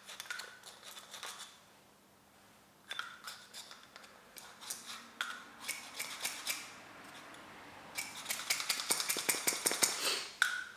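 Small plastic and metal gel blaster gearbox parts being handled and pulled out: scattered clicks and scrapes, then a rapid run of clicks in the last few seconds.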